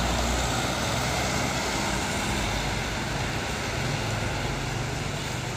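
Intercity bus's diesel engine droning low as it drives away on a rain-soaked road, its tyres hissing on the wet asphalt. The engine is loudest at the start and fades, under a steady hiss of rain and traffic.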